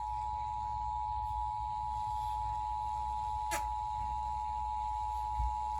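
Emergency Alert System attention signal: the two-tone 853 and 960 hertz alarm held steady without a break, announcing that an emergency message is about to be read. A brief click about three and a half seconds in.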